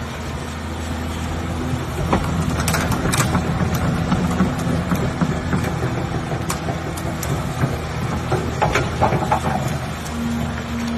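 Doosan DX225 crawler excavator's diesel engine running steadily, with scattered sharp knocks over it.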